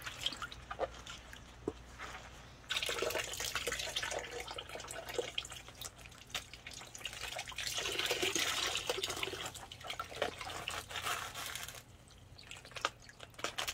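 Water splashing and dripping in a tub as soaked loofah gourds are peeled and the wet, stringy sponge is lifted out streaming water. The splashing grows louder about three seconds in, full of small drips and patters, and falls away shortly before the end.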